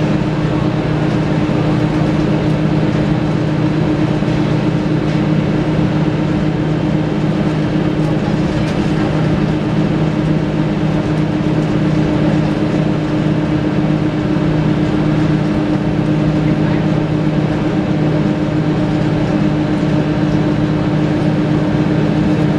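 Scania DSC9 diesel engine of a Scania L94UB bus, heard from inside the passenger saloon, running with a steady drone that holds one pitch throughout, over road and cabin noise.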